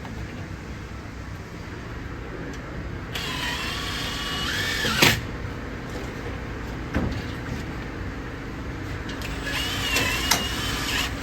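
Steady low rumble of a running vehicle engine, with a small motor whining twice, its pitch stepping up and down, the first whine ending in a sharp knock; another knock near the end.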